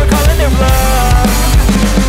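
Background rock music with a drum-kit beat and bass.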